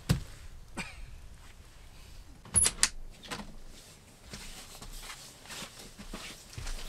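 Scattered knocks and clicks, loudest a pair of sharp clicks close together with a brief high squeak about two and a half seconds in, followed by light tapping.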